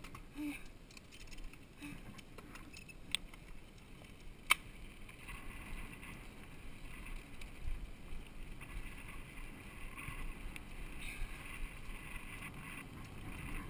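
Mountain bike rolling down a dirt trail: steady tyre noise on the dirt with small clicks and rattles from the bike, and two sharp clicks about three and four and a half seconds in.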